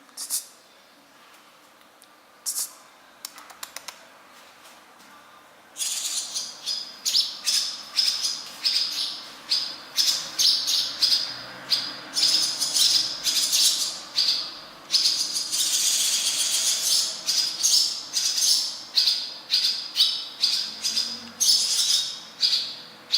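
A bird calling: a few single sharp chirps, then from about six seconds in a fast, unbroken run of loud, harsh high-pitched chirps.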